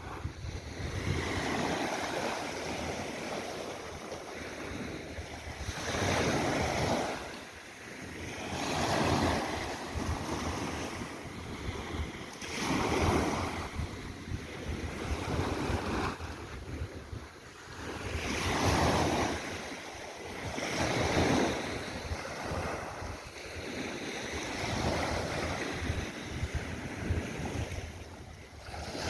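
Sea waves breaking and washing in, the noise swelling and falling in repeated surges every few seconds. A steady low rumble of wind on the microphone sits underneath.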